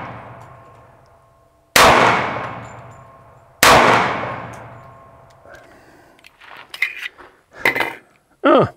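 Two .45 ACP pistol shots from a Springfield Armory Champion Operator, a little under two seconds apart, each ringing out and fading over about two seconds. Lighter clicks and handling knocks follow in the last few seconds.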